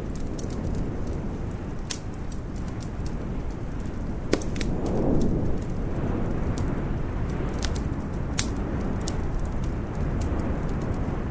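Wood fire crackling in a fireplace: irregular sharp snaps and pops over a steady low rumble. About four seconds in, a louder pop is followed by a brief swelling whoosh.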